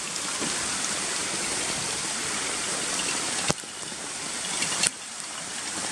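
Steady rushing hiss of water, with no engine or voice in it. Two sharp clicks come about three and a half and five seconds in, and the hiss is quieter after each.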